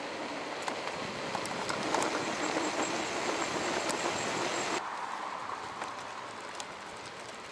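Bicycle riding downhill on asphalt: steady tyre and wind noise with scattered clicks and rattles from the bike. The noise drops suddenly about five seconds in.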